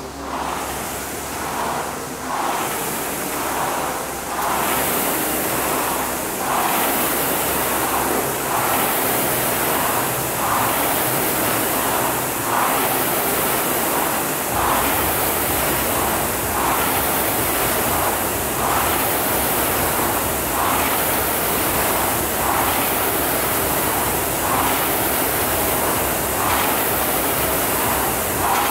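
Concept2 indoor rower's air-resistance flywheel whooshing, swelling with each drive stroke about every two seconds. It builds over the first few seconds as the flywheel spins up, then holds a steady rhythm.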